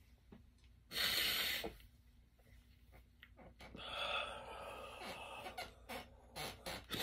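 A man sighing heavily: one hard breath out about a second in, then a longer, softer breath out from about four seconds, followed by a few small clicks.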